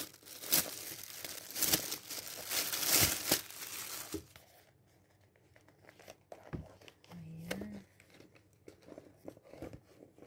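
Packaging crinkling and tearing as a handbag is unwrapped, in loud bursts for about the first four seconds, then quieter rustling and handling.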